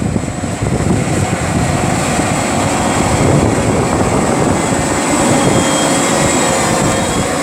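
Case Magnum 380 tractor running steadily under load while pulling a reversible plough, a dense low rumble with no change in pace.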